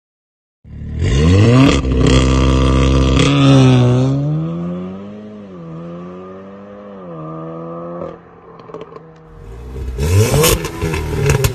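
VW Golf 7.5 R with a Stage 1 tune and custom exhaust accelerating hard, its revs climbing sharply and holding loud, then easing and rising and falling. Near the end the engine is revved again with rapid crackling from the exhaust.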